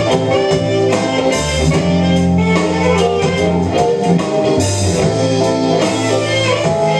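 A band playing live: electric bass holding low notes over a drum kit with cymbals, with a saxophone line on top.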